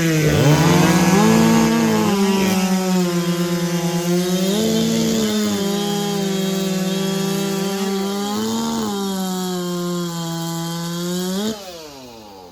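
Two big-bore racing chainsaws, over 90cc, running flat out side by side as they cut through logs, their pitch dipping slightly under load. About eleven and a half seconds in they come off the cut and wind down together, the pitch falling as the noise drops away.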